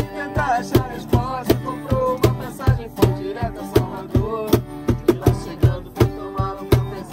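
Acoustic guitar strummed and a cajón slapped in a steady beat, live around a campfire circle, with a voice singing along.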